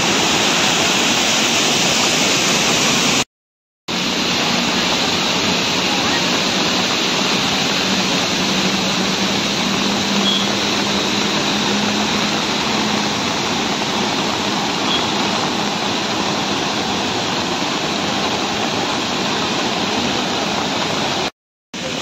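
Steady, loud rush of a large waterfall, broken by two brief dropouts to silence, one near the start and one near the end.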